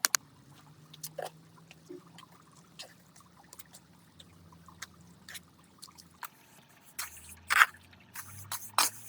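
Water dripping and trickling in irregular drops, with a few louder drops and splashes near the end.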